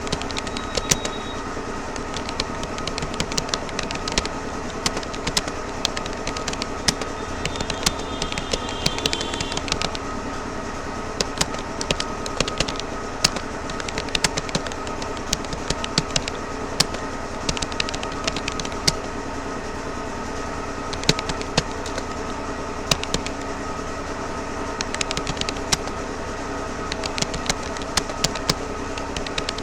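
Keys of a Rapoo computer keyboard clicking in an uneven, fast stream of touch typing, over a steady background hum.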